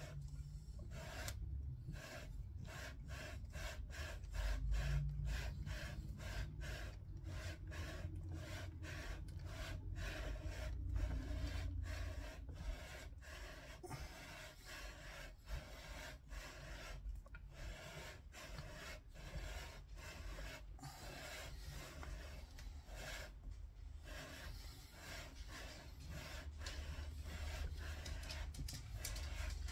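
Scope-ring lapping bar slid back and forth through a rifle's scope rings: a steady rhythm of short rubbing strokes, about two or three a second, with a short break about two thirds of the way in. The lapping wears down imperfections in the rings so the scope will line up properly.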